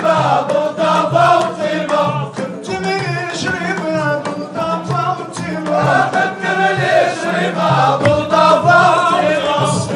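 Dakka Marrakchia: a chorus of men chanting in unison behind lead singers on microphones, over sharp clapped and struck beats.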